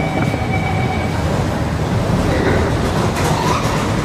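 Metro train rumbling in an underground station, with a high steady whine during the first second or so.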